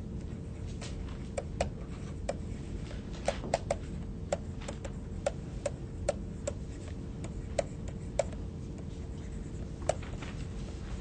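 Stylus tapping and clicking against a tablet screen while words are handwritten: irregular sharp clicks, roughly two a second, over a low steady hum.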